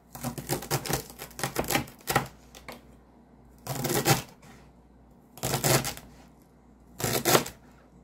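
Chef's knife chopping vegetable strips on a plastic cutting board: a quick run of rapid chops, then three short bursts of chopping about a second and a half apart.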